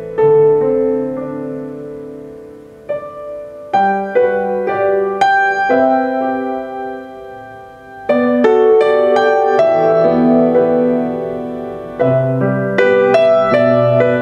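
Instrumental piano break in a slow Mandarin ballad: chords struck and left to ring and fade, with fresh stronger chords about four, eight and twelve seconds in.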